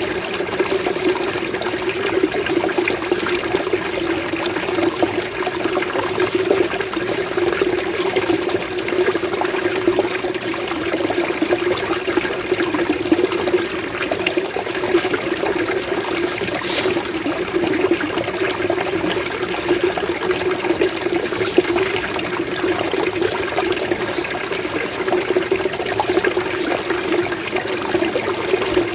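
Running water gurgling and trickling steadily in a small burbling flow, with faint short bird chirps now and then.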